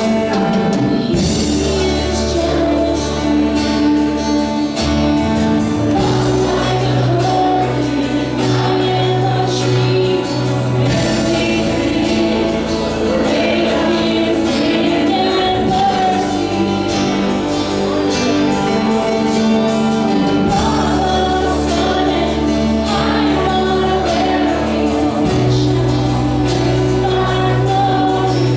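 Live gospel worship song with a group of singers over a band, a sustained bass line shifting every few seconds beneath the voices.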